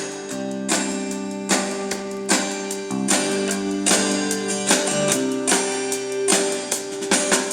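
Music with strummed guitar chords, a strum about every second, played back through a TG-166 mini Bluetooth speaker.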